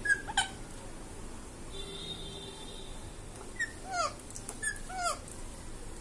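Indian ringneck parakeet giving short, soft squeaks that fall in pitch: two near the start and four more in the second half.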